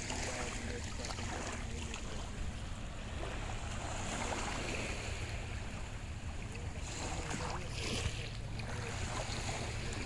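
Steady seaside noise of small waves washing in over calm water, with a low rumble of wind on the microphone.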